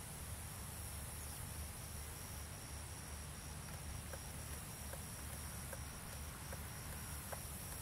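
Faint, steady background noise: a low rumble with a faint high-pitched chirp pulsing a little over twice a second and a few faint ticks.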